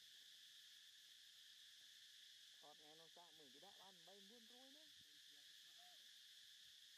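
Faint, steady, high-pitched chorus of crickets. About three seconds in, a faint pitched voice rises and falls for about two seconds, with a short call near the end.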